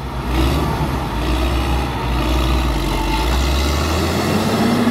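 Caterpillar 140K motor grader's six-cylinder diesel engine running under load as the grader spreads asphalt with its blade, a deep steady rumble. Near the end the lowest rumble drops away and a steadier, higher hum takes over.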